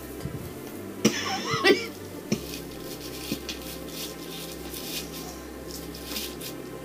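Faint clicks and rustles of a string of LED lights being handled and fed into a clear ornament ball, with a brief vocal sound about a second in.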